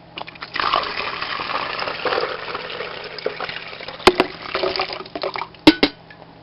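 Water poured into the reservoir of a drip coffee maker, a splashing pour lasting about four seconds and thinning out toward its end. Then come a few sharp clicks.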